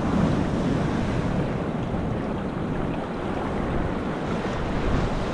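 Steady wash of surf and sea water, with wind rumbling on the microphone.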